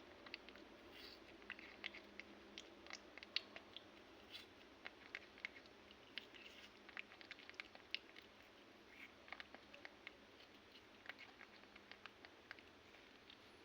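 Faint chewing: irregular small clicks and crunches, several a second.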